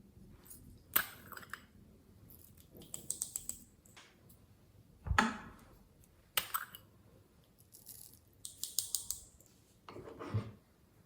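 Hands working glossy slime, giving sticky clicks and crackles as it is pressed and pulled apart. Two runs of rapid crackling ticks, with a heavier squelch about five seconds in.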